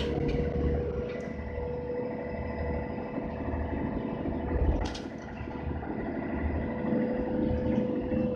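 Inside a Mercedes-Benz O530 Citaro bus, its OM457 hLA inline-six diesel running with a steady low rumble and a constant hum. There is one sharp rattle about five seconds in.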